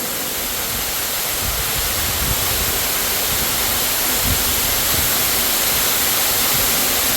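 Underground waterfall in an abandoned mine, water falling with a steady, loud rushing.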